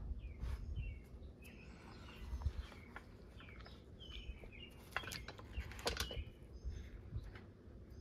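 Faint handling noise as gloved hands set a small decal onto a toy tractor's hood with a hobby knife: soft clicks, rustles and bumps, busiest about five to six seconds in. Faint short bird chirps sound in the background.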